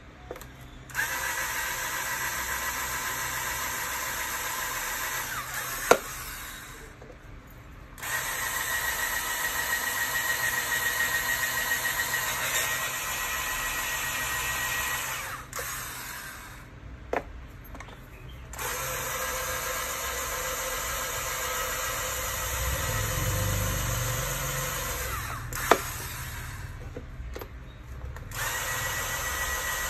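Handheld electric drill running in four runs with short stops between them, a steady whine, as it drills out the pins holding a plastic circuit breaker's case together. Sharp clicks come in the pauses.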